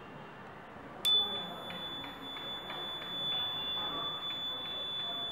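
Small round DC buzzer powered by a 9 V battery, switched on with a click about a second in and then sounding one steady, high-pitched tone.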